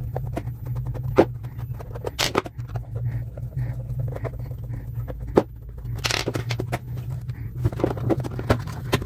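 An old power supply adapter being taken apart by hand: scattered clicks, knocks and scrapes as its housing and parts are handled, over a steady low hum.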